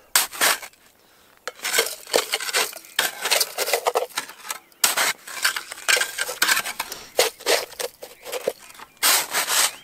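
Snow being scooped with a small metal snow shovel and packed into a metal kettle: repeated irregular crunching scrapes, with clinks of metal against the pot. A short pause comes about a second in, before the scooping goes on.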